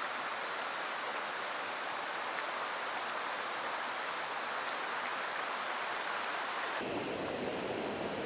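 Steady rush of a mountain stream's running water. A faint click comes about six seconds in, and near the end the sound abruptly turns duller.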